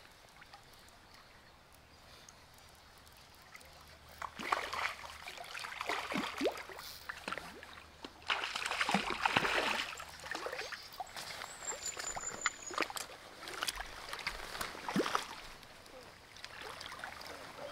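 Hooked rainbow trout thrashing and splashing at the surface of a shallow stream as it is played on a fly rod and drawn into the landing net. The splashes come in irregular bursts from about four seconds in and are loudest for a couple of seconds near the middle. Before that there is only the faint flow of the stream.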